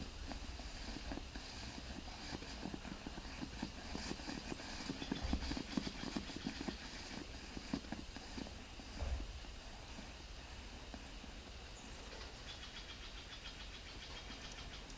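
Oxalic acid vaporizer crackling and popping as it pushes out vapor: rapid irregular crackle over a low steady hum, busiest for the first nine seconds, then thinning to a fainter crackle.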